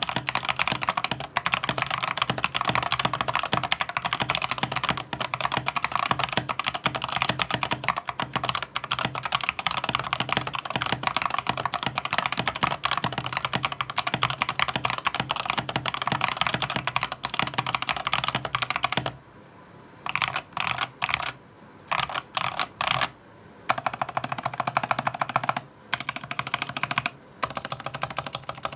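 Lofree 1% mechanical keyboard, with factory-lubed Kailh Jellyfish linear switches and transparent keycaps that have closed bottoms, being typed on quickly and continuously. About two-thirds of the way through, the typing breaks into shorter bursts with brief pauses between them.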